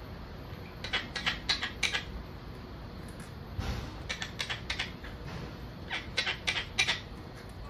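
A parrot making three quick runs of sharp clicks, about six clicks in each run.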